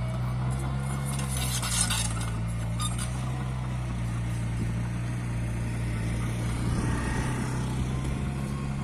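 Mini bulldozer's diesel engine running steadily, with metallic clinking and clanking about one and a half to three seconds in.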